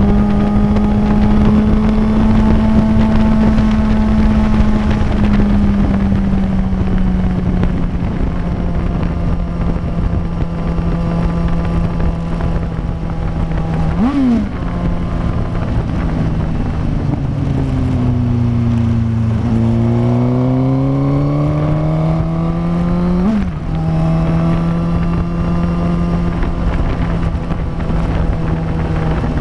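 Suzuki inline-four motorcycle engine at highway speed, with wind rush. It drones steadily with a quick throttle blip about halfway, then drops in pitch as the rider slows. It climbs back up through the revs and falls off sharply at an upshift, settling into a steady cruise.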